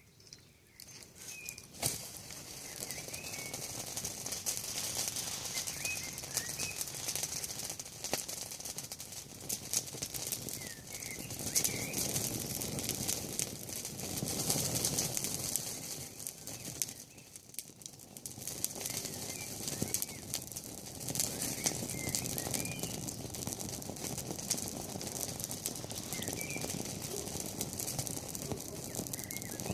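Campfire of burning wood and leaves crackling steadily, the fire's rushing noise swelling and easing, with a small bird chirping briefly every few seconds.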